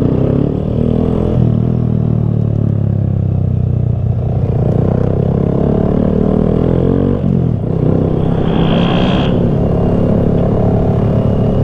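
Honda Grom minibike's single-cylinder engine running, its pitch rising and falling several times with the throttle. A brief higher-pitched sound cuts in about three-quarters of the way through.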